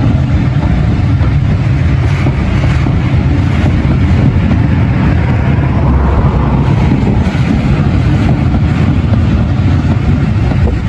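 Passenger train of maroon coaches rolling along the track, a loud, steady low rumble.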